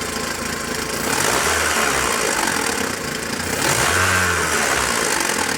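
JAC J6 2.0 16-valve engine revved twice from idle with its timing belt cover off. It makes an annoying noise from the timing belt that seems to come from there, probably worn tensioner and idler bearings.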